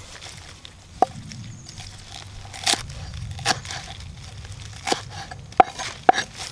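Knife chopping the root ends off a bunch of spring onions on a round wooden chopping block: about six sharp knocks of the blade on the wood, spaced irregularly.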